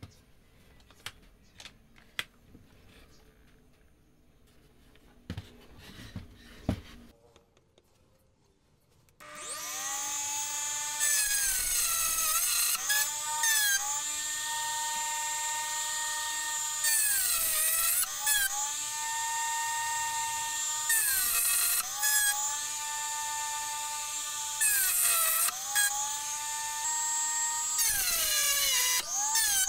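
A few light wooden knocks and clicks, then about nine seconds in a Dremel rotary tool starts with a high steady whine. Its pitch dips briefly every couple of seconds as the bit cuts tread notches into a teak wheel, then recovers.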